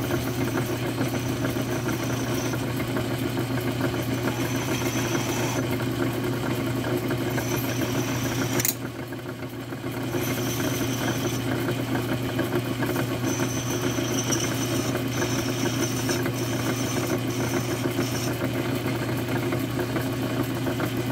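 Milling machine running steadily with a workpiece spinning in its spindle, while a hand file is held against the turning edge to deburr it; a faint high scraping comes and goes in stretches. A sharp click a little under nine seconds in, followed by a brief quieter dip.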